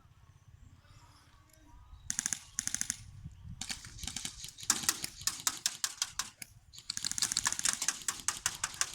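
Airsoft BB guns firing on full auto: after about two seconds of quiet, several rapid bursts of sharp, clicking shots, getting longer and closer together from about three and a half seconds in.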